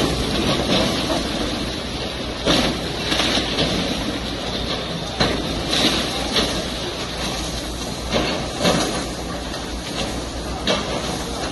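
A hydraulic excavator's engine runs steadily while its bucket breaks up a concrete building, with repeated crashes and clatter of concrete and debris falling.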